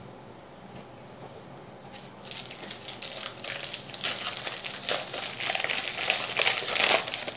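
Plastic foil wrapper of a baseball card pack crinkling as it is torn open and handled, starting about two seconds in and growing louder toward the end.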